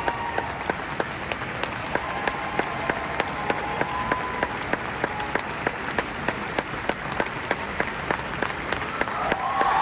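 Concert-hall audience giving a standing ovation, a dense wash of applause. One nearby pair of hands claps about three times a second and stands out from the rest.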